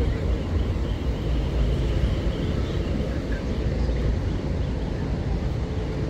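Beach ambience: a steady low rumble with no clear events in it.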